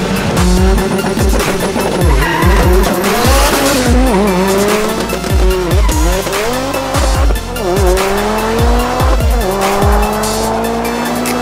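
Mitsubishi Lancer Evolution IX's turbocharged four-cylinder engine accelerating hard down a drag strip, revving up through the gears and dropping back at each shift several times, mixed with background music with a regular thumping beat.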